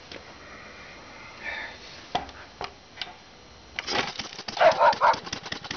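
Briggs & Stratton Model Y single-cylinder engine being kick-started: a few knocks from the kick pedal, then about four seconds in it catches and keeps running with a rapid, even popping exhaust, loudest just as it fires up.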